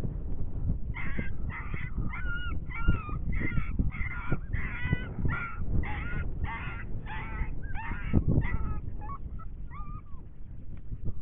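Electronic predator caller playing coyote yips and barks: a rapid string of about two yelping calls a second, ending in a few short sliding yelps. A steady low wind rumble is heard under the calls.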